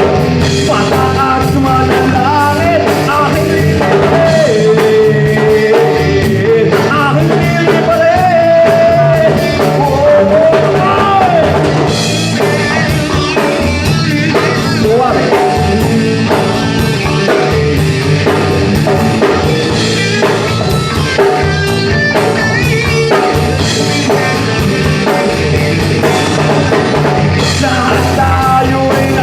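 Live rock band playing: a male lead vocal singing over electric guitar, bass guitar and a drum kit, loud and steady throughout.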